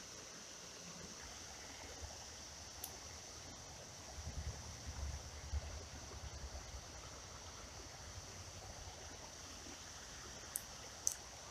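Faint, steady flow of shallow creek water, with a few low bumps in the middle and a few small clicks near the end.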